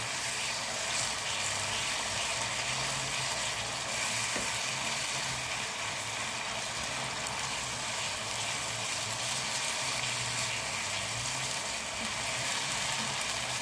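Chili paste with onions and vinegar frying in a pan: a steady sizzling hiss.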